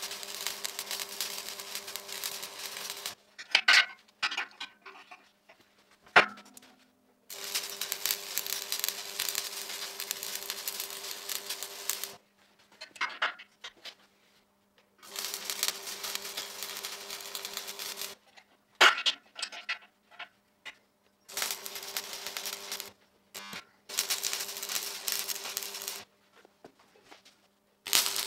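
Electric arc welding on a steel frame: a steady crackle with a faint hum under it, laid down in runs of a few seconds and stopping and starting about six times. In some of the pauses there are a few sharp metal knocks.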